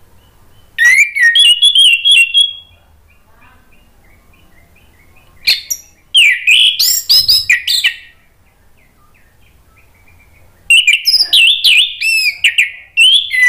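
Orange-headed thrush singing a loud, full-voiced song in three bursts of rapid, varied whistled and chattering phrases: about a second in, around the middle, and again near the end. Between the bursts, faint short chirps repeat at an even pace.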